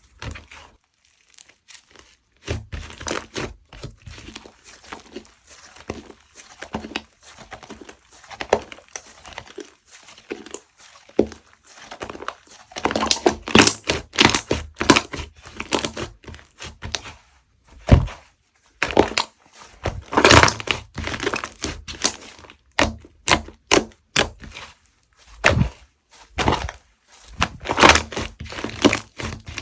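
Hands squishing, stretching and poking clay-mixed slime, giving irregular crackling pops and squelches. It gets busier and louder about halfway through.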